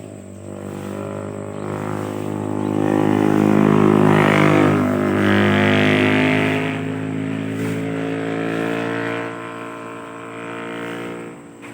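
A motor vehicle's engine passes by, growing louder to a peak about halfway through, then fading away.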